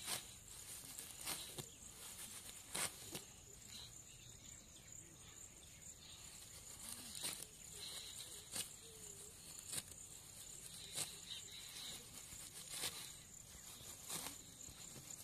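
A steady high insect drone outdoors, with irregular sharp clicks or knocks about once a second.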